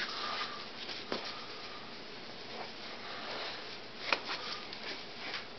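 Faint rustling and a few light clicks and knocks as puppets and figurines are handled, over a steady low hiss.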